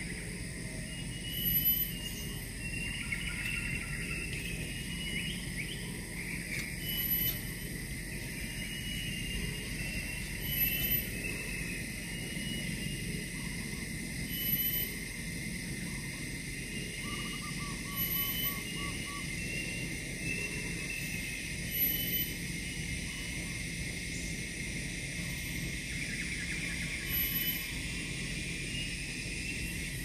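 Outdoor forest ambience: a steady high drone with short, very high chirps repeating every three to four seconds, scattered mid-pitched calls, and a quick run of notes about two-thirds of the way through.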